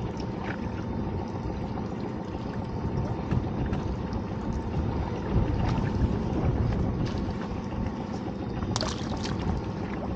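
Steady low rumble and wash of a small fishing boat at sea, with a few light knocks and rattles from a crab pot being handled at the boat's side, the clearest about nine seconds in.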